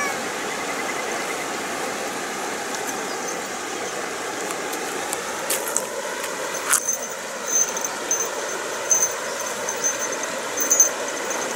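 A steady rushing background noise, with a few sharp clicks around the middle and a faint, broken high-pitched chirping in the second half.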